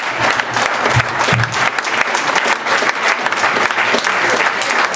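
A small audience applauding: many hands clapping steadily together.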